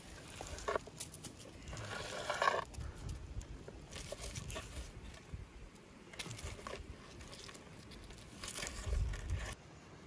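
Grilled trout being worked off wooden stick skewers onto a wooden tray by hand: several short bursts of scraping and crackling handling noise, the loudest about two seconds in.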